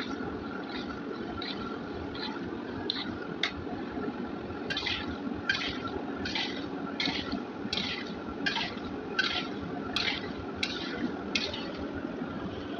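Gulab jamun dough balls frying in a kadai of hot oil: a steady sizzle, with a ladle sweeping through the oil in a regular rhythm of a little over one stroke a second. The strokes grow louder from about a third of the way in and stop near the end.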